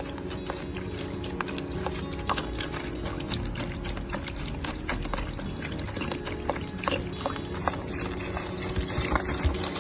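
Lemon juice poured from a plastic bottle splashing onto caustic soda flakes in a plastic basin, with many small clicks and pops. The acidic juice is dissolving the sodium hydroxide flakes without heating.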